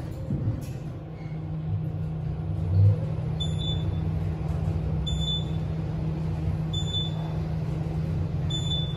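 Otis Gen2 traction elevator car travelling down, a steady hum with a low rumble and one thump about three seconds in. Four short high beeps sound about every one and a half seconds: the car's floor-passing tones as it goes by the intermediate floors.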